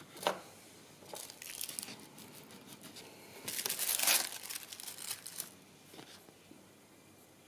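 A sheet of metallic transfer foil crinkling as it is handled and put down, loudest about three and a half to four seconds in, with a light tap just after the start.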